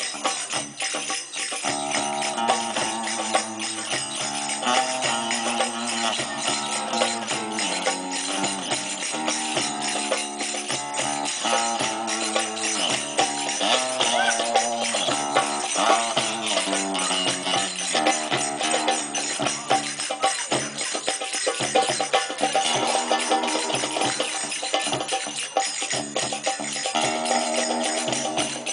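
Live band music: a melodic line of sustained notes over busy, steady percussion with jingling.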